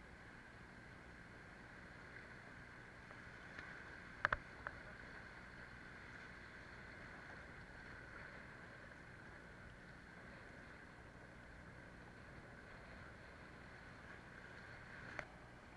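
Faint, steady rush of river rapids around the kayak, with a few sharp knocks about four seconds in and another near the end.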